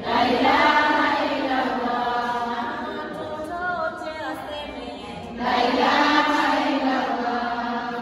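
A group of voices singing together in a chant-like unison, swelling loud at the start and again about five and a half seconds in, then cutting off suddenly at the end.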